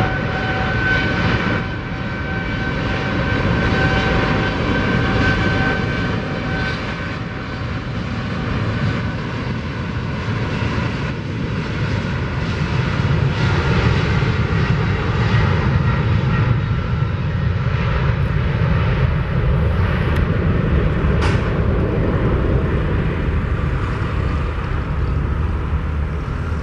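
Boeing 777-200F's two GE90 turbofans at takeoff thrust during the takeoff roll. A high whine fades after about six seconds, and a heavy jet rumble runs throughout, swelling toward the middle as the aircraft accelerates and rotates.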